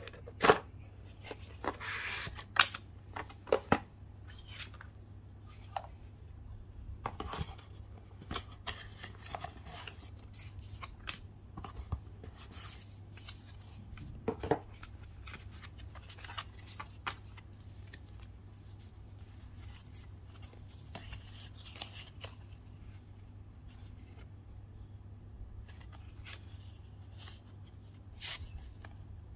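Cardboard packaging and paper cards being handled: irregular taps, clicks and rubbing, the loudest in the first few seconds, over a steady low hum.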